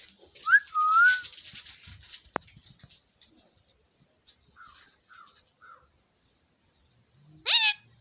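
Indian ringneck parakeet calling: scratchy chatter with a short wavering whistle about half a second in, a few soft chirps around the middle, then one loud rising call near the end.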